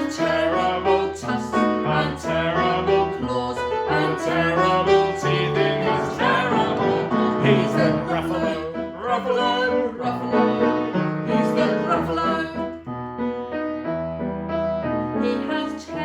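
Piano playing the bouncy accompaniment to a children's song, a run of chords and melody notes without singing.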